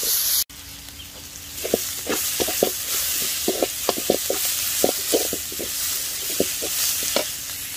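Sliced onions frying in oil in an aluminium kadai, sizzling steadily, while a slotted metal spatula stirs them with many quick scraping and tapping strokes against the pan. The sound drops out for an instant about half a second in.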